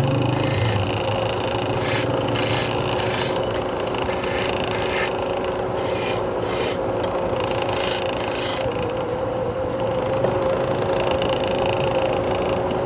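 Wood lathe running with a steady motor hum while a hand tool scrapes the spinning wood in short, repeated rasping strokes. The strokes stop about nine seconds in and the lathe keeps humming.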